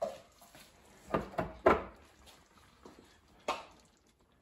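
About five sharp clunks and clinks of kitchen dishes and utensils being handled: one near the start, three in quick succession a little after a second in, the last of them the loudest, and one more about three and a half seconds in.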